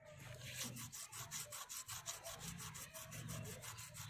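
A hand rubbing a paste of lemon juice and powder over a rusty chrome spoked wheel rim. The scrubbing goes in quick, even back-and-forth strokes, several a second, while the paste lifts the rust.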